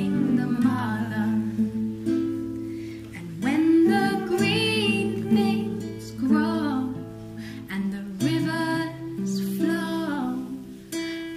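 Music: the slow intro of a devotional song, with wordless singing that swells and glides over long held low instrumental notes.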